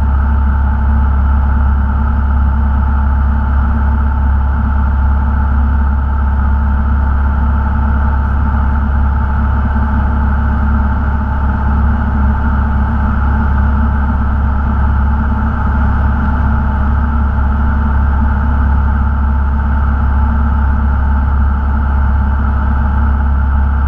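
Cessna 172 Skyhawk's piston engine and propeller running steadily in flight, heard inside the cabin as a loud, even drone with a deep hum and no change in pitch.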